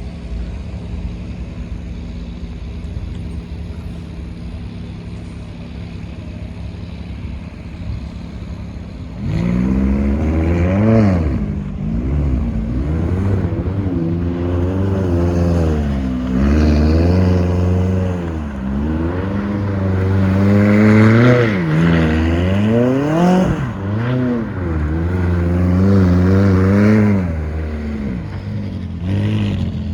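McLaren 570S's twin-turbo V8 running steadily at low revs, then from about nine seconds in revving hard again and again, the pitch climbing and dropping sharply at each gear change as the car accelerates.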